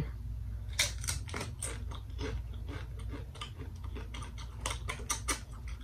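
Paqui Haunted Ghost Pepper tortilla chips being bitten and chewed: an irregular run of crisp crunches.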